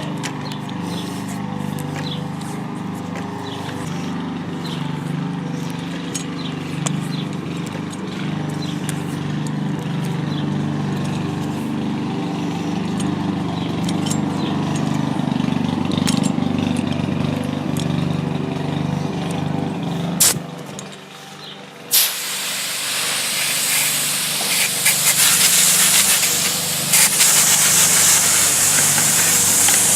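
A low steady hum with scattered light clicks, then about two-thirds of the way through a garden hose turned on at the tap: water spraying out in a loud, steady hiss.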